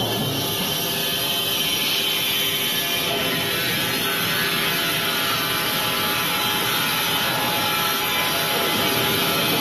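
Wood-Mizer industrial band sawmill running and sawing wood, a loud steady machine noise with a high whine from the blade.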